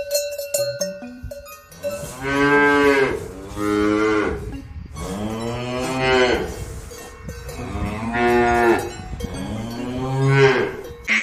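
Cows mooing, about five long moos one after another, the middle one the longest. Collar cowbells clank through the first two seconds and go on faintly under the moos.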